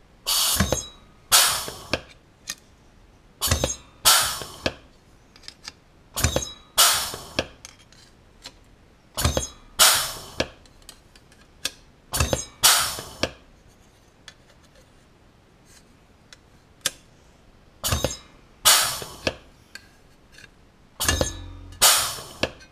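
Aluminium sheet being dimpled in a bench-mounted dimpler: sharp metallic clacks in pairs, about every three seconds, as the dies close on each rivet hole, the thin sheet ringing briefly after each.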